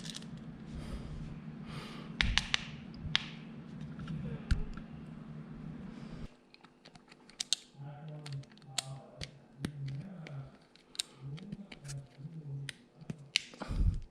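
Clicks and taps of small plastic and metal parts as a Wahl Detailer hair trimmer's housing is taken apart by hand. A low steady hum runs underneath and cuts off abruptly about six seconds in.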